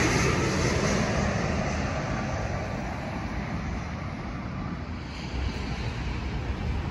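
Boeing 777 jet airliner on final approach passing low overhead, its engine noise fading steadily as it moves away. Wind rumbles on the microphone underneath, with a slight rise in noise about five seconds in.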